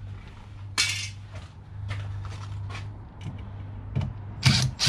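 Tools and loose parts being handled: scattered clinks, scrapes and rustles, with a louder clatter about a second in and another near the end, over a low steady hum.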